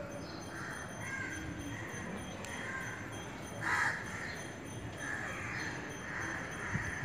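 Crows cawing over and over, short raucous calls, the loudest about four seconds in.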